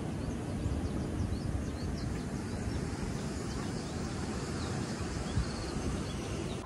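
Wind rumbling on the microphone, with small birds chirping in short high notes again and again over it.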